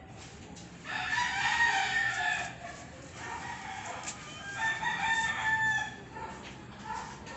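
Two long, pitched animal calls, the first starting about a second in and the second near the middle.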